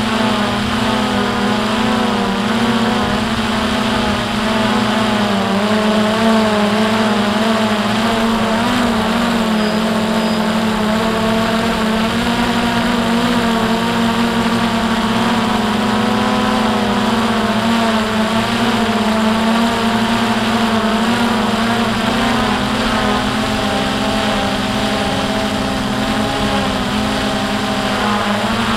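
A drone's motors and propellers whirring steadily in flight, heard close up from the camera mounted on the drone; the drone's pitch wavers slightly as it flies.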